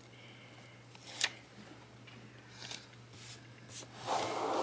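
Paper stickers and a spiral planner being handled: a sharp click about a second in, soft paper rustles, then a louder rustling slide near the end as the planner is taken in hand and moved.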